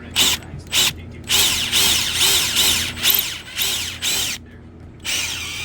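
Power drill boring pilot holes into the wooden door jamb so the screws won't split the wood. Two short blips come first, then a run of about three seconds with the motor pitch rising and falling over and over, and another run of about a second near the end.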